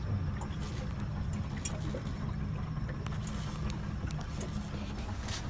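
Fishing boat under way, heard from inside the wheelhouse: a steady low engine drone with water washing against the hull, and a few light clicks or rattles.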